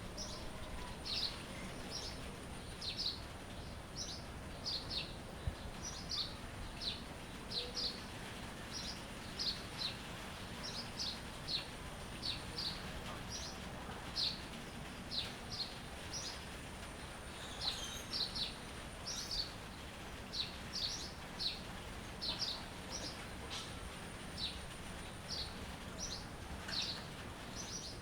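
A songbird chirping over and over, short high chirps about one or two a second, some in quick pairs, over a steady background hiss and a faint steady high tone.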